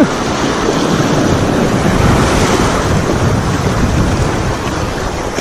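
Small waves breaking and washing up a rocky, sandy shoreline, a steady rush of surf, with wind buffeting the microphone.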